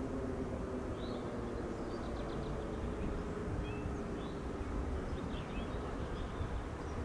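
Outdoor ambience: a steady low rumble with birds chirping now and then. In the first few seconds a faint distant siren tone fades away, dropping slightly in pitch as it winds down.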